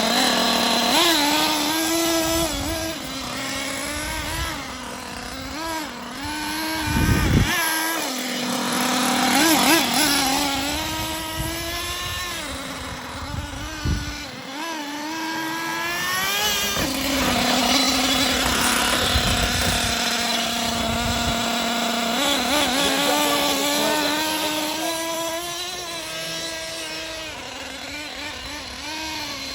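Losi LST nitro RC monster truck's small glow-fuel engine running under throttle, its pitch rising and falling repeatedly as the truck is driven, with a couple of brief drop-offs.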